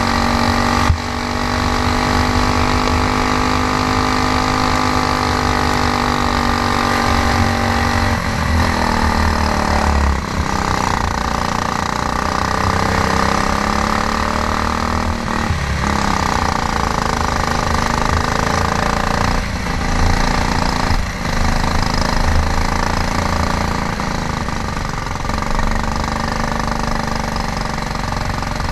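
Stock Honda GX390 single-cylinder four-stroke kart engine running hard at racing speed. Its note drops briefly and climbs back several times as the throttle is eased and opened again.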